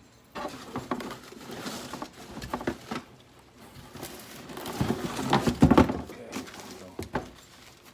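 Cardboard box and packaging being handled: irregular knocks, scrapes and rustling, busiest a little past the middle.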